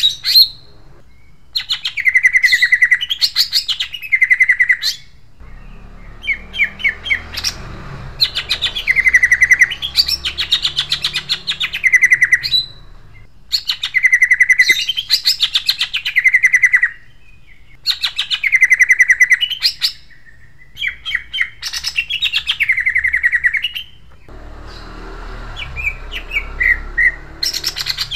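Male cucak ijo (greater green leafbird) singing its harsh, sharp-toned song: repeated fast-rolling phrases of rapid notes, each sweeping down from high to lower pitch, with short pauses between them.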